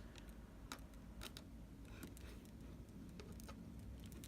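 Faint, scattered small clicks and taps, about a dozen in all, from small repair tools and tiny screws being handled inside an iPhone.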